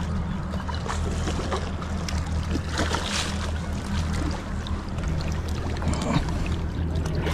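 A boat's engine idling with a steady low hum, under water and wind noise, with a few light knocks and a brief wash of noise about three seconds in.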